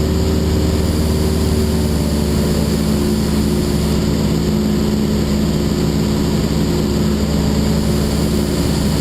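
Cessna 172N's four-cylinder Lycoming piston engine and propeller droning steadily in flight, heard from inside the cabin.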